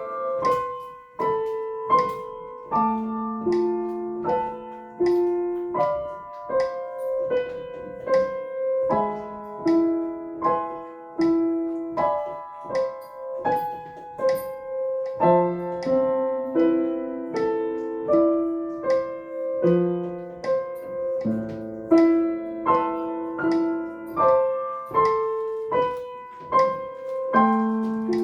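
Piano played slowly and evenly with both hands, a melody over a lower accompaniment, with a new note struck about every three-quarters of a second: a practice run at 78 quaver beats a minute.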